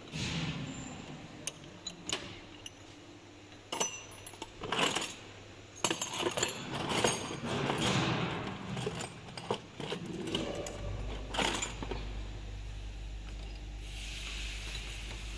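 Metal machine parts and hand tools clinking, rattling and knocking in a run of irregular clicks during hands-on machine adjustment. About ten seconds in a steady low hum comes in, and a hiss joins it near the end.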